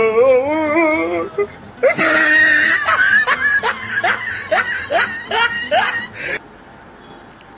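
Comic laughter-like vocal sounds over music: a wobbling drawn-out note, then a run of rising whooping laughs about two a second. They cut off abruptly about six seconds in, leaving faint room tone.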